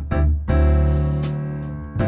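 Background music of piano chords: a chord struck about half a second in rings for over a second before the next.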